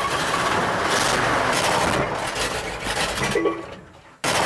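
1965 Chevy C10 pickup's engine under throttle as the truck pulls slowly forward: a loud rushing noise with a few sharp crackles that fades away over the last second or so. The engine is running poorly, which the owner thinks could be a fuel filter clogging up again.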